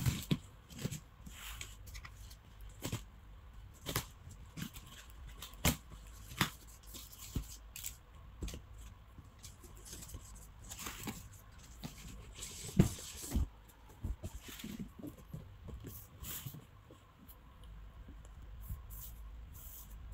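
Cardboard shipping box being opened by hand: scattered knocks and taps on the carton, with rustling and tearing as the taped flaps are pulled open and the inner box is lifted out.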